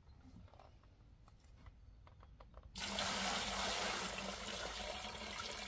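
Gasoline poured from a plastic oil drain pan into a plastic five-gallon bucket: after a few faint handling clicks, a steady pour starts suddenly about halfway in and keeps going.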